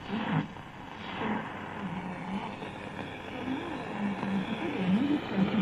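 AM radio reception from the Tivoli Model One BT's speaker while tuning the AM band: a faint broadcast voice under steady static and hiss, with a brief rush of static at the start.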